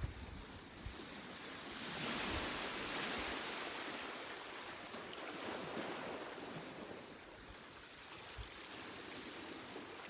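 Sea surf washing on a pebble shore: a steady hiss of waves that swells about two seconds in and slowly dies away over the next few seconds.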